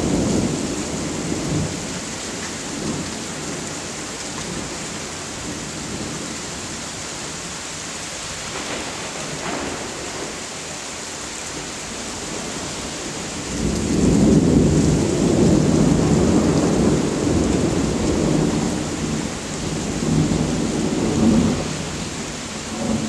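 Steady rain from a sudden thunderstorm downpour with rolling thunder: a low rumble dies away in the first couple of seconds, then a longer, louder rumble builds a little past halfway and rolls on for several seconds before easing.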